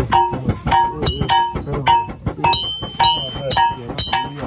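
Hammer blows on metal, a few strikes a second at an uneven pace, each ringing briefly at the same pitch, with voices underneath.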